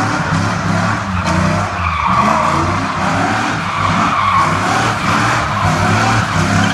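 Pickup truck doing a burnout in circles: the engine is held at high revs while the spinning rear tires squeal continuously on the pavement.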